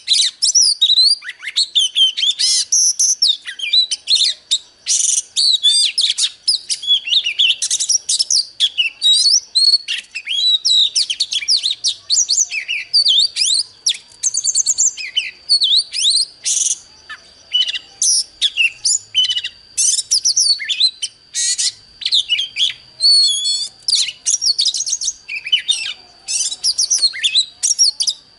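Oriental magpie-robin singing: a long, continuous run of quick, varied whistled phrases and chirps, with brief pauses between phrases.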